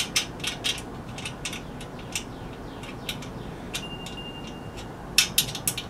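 Small metal clicks and ticks as a nut is started by hand onto a bolt holding a foot bracket to a portable generator's steel frame. The clicks come in scattered clusters and are busiest near the end.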